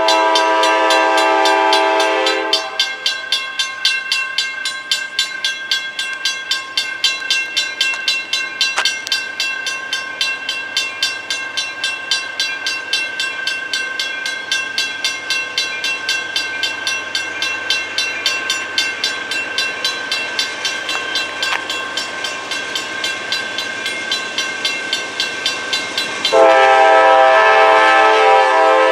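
Diesel locomotive air horn sounding a chord: one blast that ends about two and a half seconds in, and another starting near the end. Between and under the blasts, a bell rings in a fast, even rhythm.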